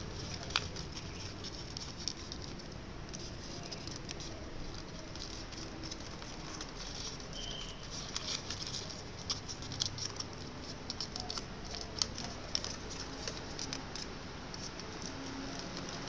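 Origami paper crinkling and crackling as it is folded and creased by hand: irregular light clicks and rustles over a steady background hiss.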